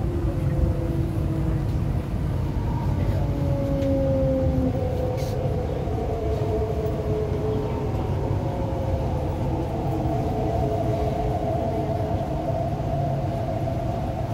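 MTR East Rail Line R-Train electric multiple unit braking into a station, heard from inside the car: the traction motors whine in several tones that fall in pitch over the first few seconds as the train slows, then hold a steadier tone over a continuous low rumble.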